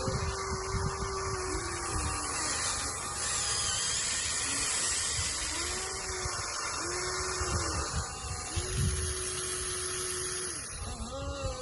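Small electric gear motors of a radio-controlled excavator whining in several short runs, each rising in pitch as it starts and dropping as it stops, over a steady hiss.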